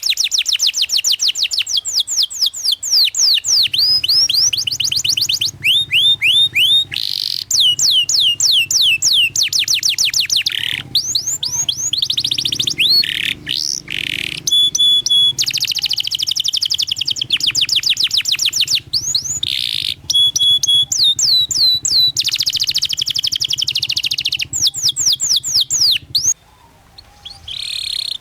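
Domestic canary singing a long song: fast rolling trills of quick downward-sweeping notes, with chirps and short held whistles between the runs. The song stops briefly near the end, then starts again.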